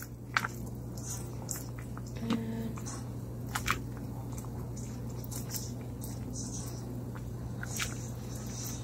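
Black plastic spatula stirring bihon noodles and vegetables through broth in a pot: soft wet squelching, with a few sharp clicks of the utensil against the pot, over a steady low hum.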